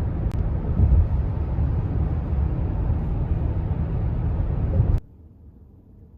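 A loud, low rumbling noise with no clear pitch, which cuts off suddenly about five seconds in, leaving only a faint low hum.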